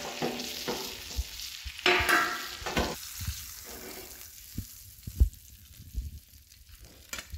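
Hot oil on an iron tawa sizzling around a fried pomfret, dying away with the gas turned off. A steel spatula scrapes under the fish, with a few short knocks as it is lifted and set onto a steel plate.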